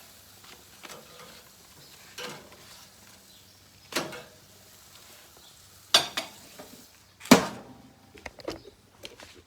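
Food sizzling in a frying pan, broken by several sharp clinks and knocks of a utensil against the pan, the loudest about seven seconds in. The sizzle fades after that knock, leaving a few lighter clicks.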